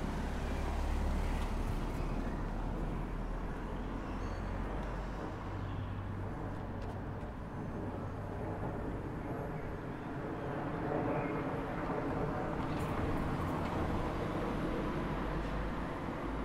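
Street traffic: a car drives past close by at the start, over a continuous low rumble of traffic, which swells again from about eleven seconds in to near the end as more cars approach.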